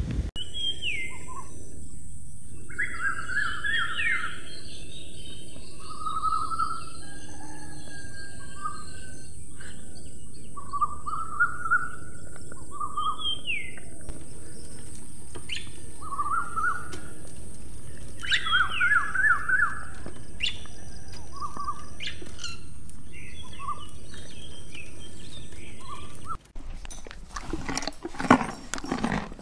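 Small songbird calling in repeated short chirping phrases, some sweeping down in pitch, over a steady outdoor hiss. Near the end it cuts to rustling and irregular thumps.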